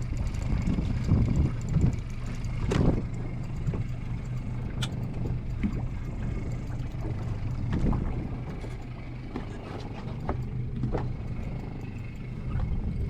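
Fishing boat's engine running steadily at low revs with a low hum, under occasional sharp knocks and clatter on the boat.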